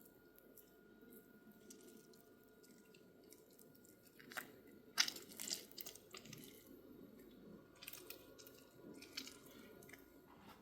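Scattered soft clicks and taps, with two sharper knocks about four and five seconds in, over a faint steady room hum.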